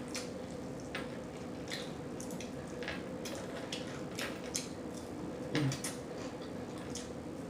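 Close-miked mouth sounds of someone eating fried chicken wings: irregular wet smacks and chewing clicks. There is a louder low thud about five and a half seconds in, over a faint steady hum.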